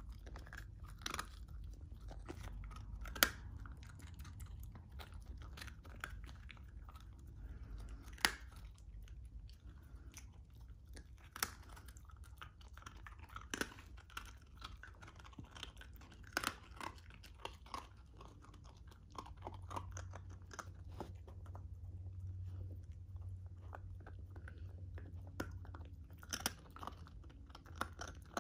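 Shiba Inu puppy chewing small pieces of a hard dog biscuit, giving irregular crunches and sharp clicks with pauses between bites, over a faint steady low hum.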